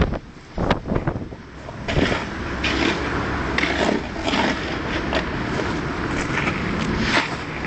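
Irregular scrapes and knocks of tools and stone on a hard surface during kerbstone laying, over a low rumble of wind on the microphone.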